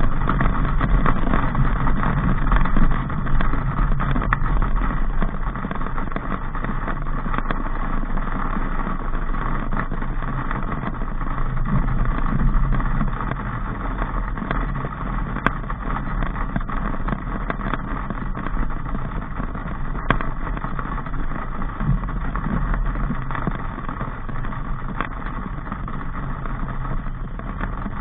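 Daihatsu Sigra on the move: steady engine hum and road noise, with two faint clicks in the second half.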